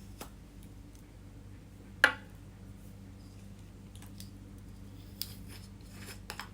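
Small objects being handled in a small room: scattered light clicks and taps, with one sharp click about two seconds in, over a faint steady hum.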